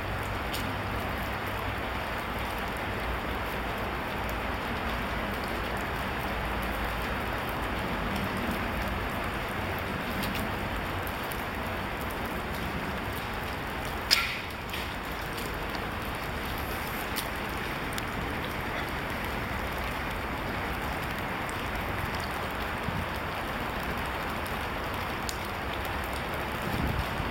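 A Japanese longbow (yumi) is shot about halfway through: one sharp snap of the released bowstring with a short ringing twang that falls in pitch (tsurune). It sits over a steady hiss.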